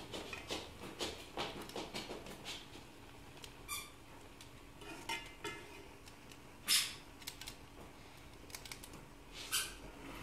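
Metal spoon stirring cooked rice in a metal pot: a run of soft scrapes and clicks, with a few short squeaks as the spoon drags on the pot, the loudest about two-thirds of the way in.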